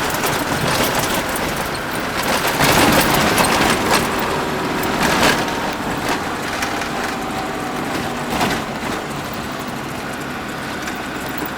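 Old Land Rover driving at about 40 km/h, a steady run of engine and road noise with several knocks and rattles, the strongest about three and five seconds in.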